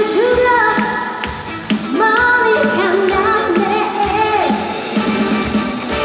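A woman singing a trot song live into a microphone over amplified backing music, holding long notes with gliding pitch.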